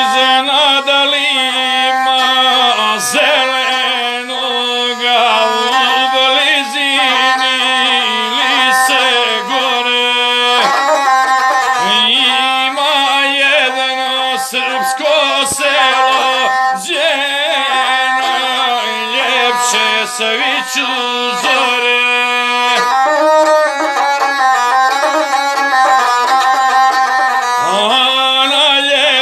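Gusle, the single-string bowed folk fiddle, playing a wavering melody that stays in a narrow range without a break.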